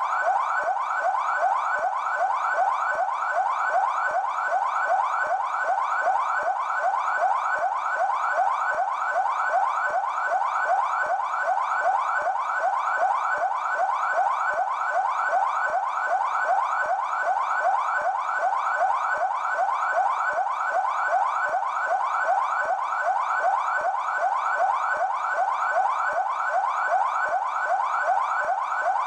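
São Paulo Military Police (PMESP) car siren in yelp mode: a steady, fast warble of quick rising sweeps, about three a second.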